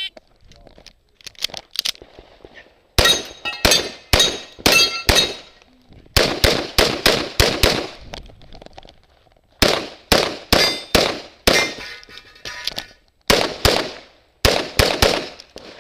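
A pistol being fired in four quick strings of about five to eight shots each, separated by pauses of about a second, during a timed USPSA stage. A short electronic shot-timer beep sounds at the very start.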